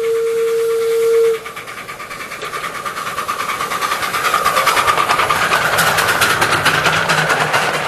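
A 10¼-inch gauge miniature steam locomotive passing close by. Its whistle sounds for the first second and a half and then stops. After that come rapid, even exhaust chuffs with a hiss of steam, growing louder as the engine draws near and goes past.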